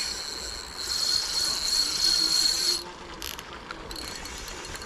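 Ultralight spinning reel buzzing with a steady, high-pitched ratcheting whir while a trout is being played. It stops abruptly about three seconds in.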